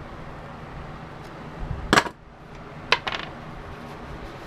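Two sharp metal-and-plastic knocks about a second apart, the second followed by a brief metallic rattle, as hand tools work on a power cord's plug end.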